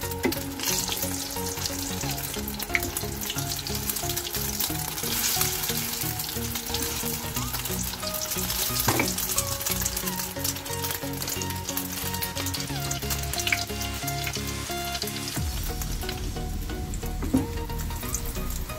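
Egg omelette batter deep-frying in hot oil in a wok, a steady crackling sizzle as it turns crispy, with a few taps of a wooden spatula against the pan.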